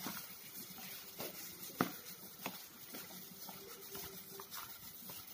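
Plastic-gloved hand rubbing and pressing a crumbly flour-and-oil mixture against the side of a bowl: soft, scratchy rustling with a few light taps, one sharper knock about two seconds in. The flour is being rubbed with oil until it is crumbly and lumpy.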